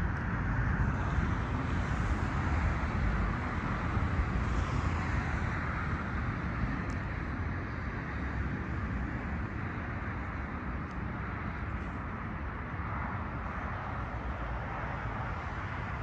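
Steady outdoor rumble and hiss, slowly fading, with no distinct calls or voices.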